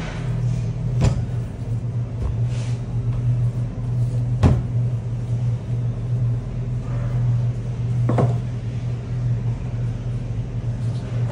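Steady low machine hum, with three sharp knocks about one, four and a half and eight seconds in from a wooden rolling pin working croissant dough on a stainless steel bench.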